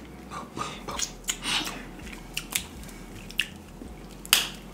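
Snow crab legs being cracked and snapped apart by hand, mixed with close-up chewing. A string of sharp clicks and crackles, the loudest crack near the end.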